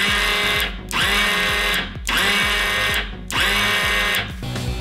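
Small brushed DC starter motor from a 110–125cc pit-bike or ATV, used as a combat-robot weapon motor, spinning up with a high electric whine and stopping, four times in quick succession as it is switched on and off.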